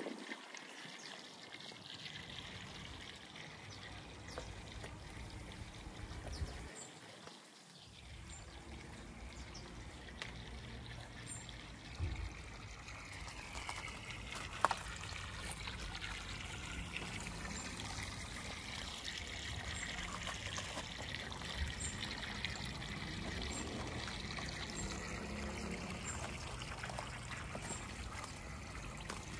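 Water trickling and splashing steadily into a garden pond, with a couple of light knocks midway.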